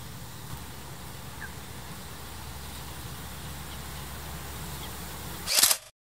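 Outdoor ambience dominated by a steady low engine-like hum, with a faint short chirp about a second and a half in. Near the end a brief loud rush of noise, the loudest thing here, then the sound cuts off suddenly into silence.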